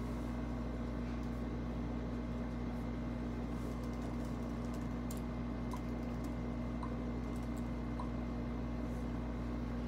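Steady room hum: a constant low mechanical drone with a steady pitched tone, and a few faint light clicks in the second half.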